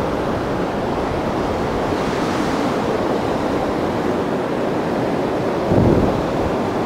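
Steady rushing of the flood-high New River below the bridge, a low continuous roar that sounds like a distant train. It swells briefly in the low range about six seconds in.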